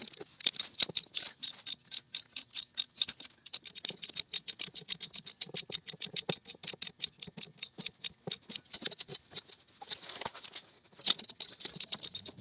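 Socket ratchet wrench clicking rapidly and steadily as it turns a bolt that draws a plug into place through a stack of washers, pausing near the end and then clicking a few more times.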